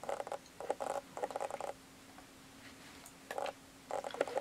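A microfiber cloth rubbing and rustling against a plastic bottle of isopropyl alcohol as the bottle is tipped into the cloth, in a few short scratchy bursts, over a faint steady hum.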